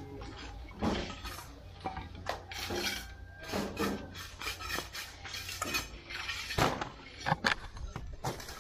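Fired clay bricks knocking and clinking against each other as they are handled and set down, a run of sharp, irregular clacks.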